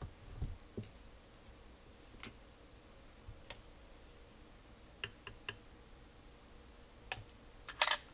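Scattered clicks and light knocks as 18650 lithium-ion cells and a plastic air-pump housing are handled. A quick rattle of several clicks comes near the end.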